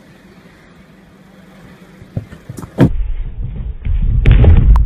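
Fairly quiet for the first three seconds or so. Then, after a sharp knock, a loud low rumble with thuds begins: a horse cantering in to a jump and taking off, with a louder clatter just before the end.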